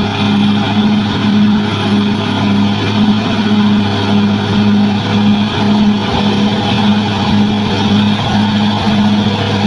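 Bulldozer's diesel engine running steadily under load, with a low hum that pulses evenly about twice a second.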